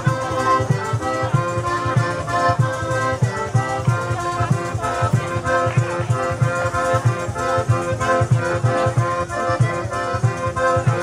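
Live southern Italian folk dance music: an accordion playing a melody over a fast, steady drum beat.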